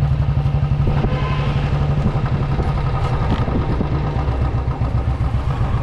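Motorbike or scooter engine running while riding slowly, a steady low drone that pulses quickly, heard from the rider's seat.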